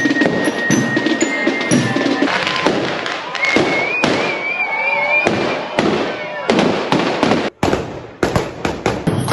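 Bangers going off in a rapid, irregular string of sharp cracks over crowd voices and procession music, with a wavering high whistle in the middle. The sound cuts out suddenly for a moment near the end.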